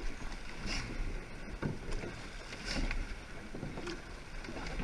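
Surfboat being rowed at race pace: wind buffeting the microphone over water rushing past the hull, with faint regular knocks from the oar strokes about once a second.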